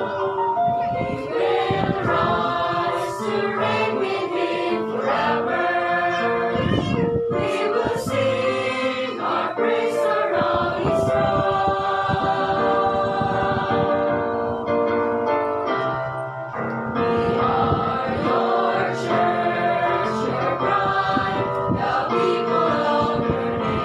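Mixed church choir of men and women singing a hymn together, held notes running on with only a short break between phrases about two-thirds of the way through.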